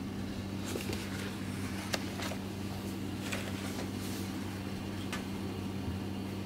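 Steady low hum of room noise, with scattered light clicks and scrapes of a kitten's claws on a wooden step ladder, about six in all.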